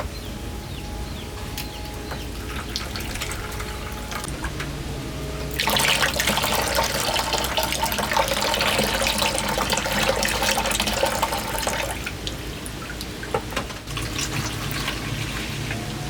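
Water running or pouring in a strong stream for about six seconds, starting about five and a half seconds in and stopping abruptly, with lighter splashing and dripping before and after.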